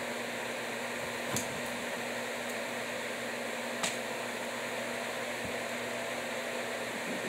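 Steady mechanical hum with a low drone, as from a fan-type appliance running, broken by two short clicks, one about a second and a half in and one near four seconds.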